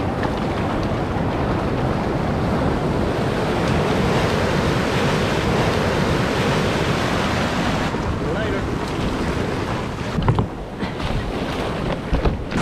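Shore-break surf crashing and washing in whitewater around a kayak, with wind buffeting the microphone. A few dull thumps come near the end.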